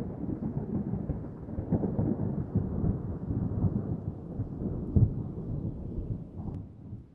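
Distant thunder rolling and crackling low, with a sharper crack about five seconds in, then fading away near the end.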